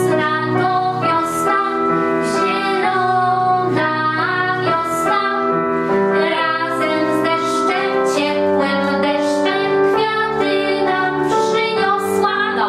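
A woman singing a Polish children's song about spring, accompanied on a digital piano, with a girl's voice singing along.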